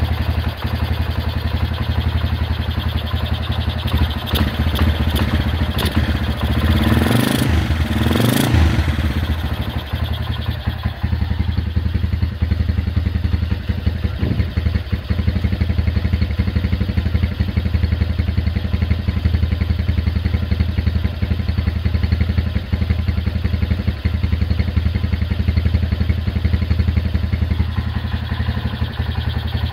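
Honda GL 160 cc single-cylinder four-stroke motorcycle engine running steadily on a chainsaw carburetor, with one brief louder surge about seven seconds in.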